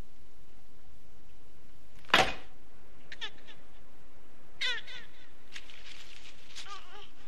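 A sharp knock about two seconds in, the loudest sound, followed by three short spells of high, chittering animal-like squeals, each a run of quick rising-and-falling cries: a horror-film creature sound effect.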